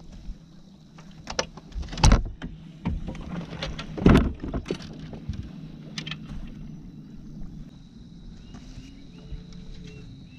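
Knocks and thumps on a boat's deck, a few sharp ones, the loudest about two and four seconds in, over a low steady hum.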